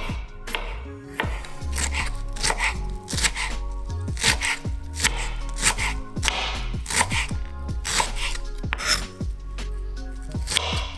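Kitchen knife chopping broccoli on a wooden cutting board: a quick, irregular run of sharp cuts, about two a second, with the blade knocking on the board.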